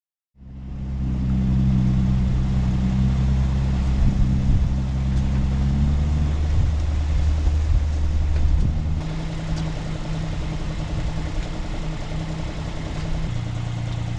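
Sailboat's inboard engine running steadily, its tone shifting a few times as the revs change.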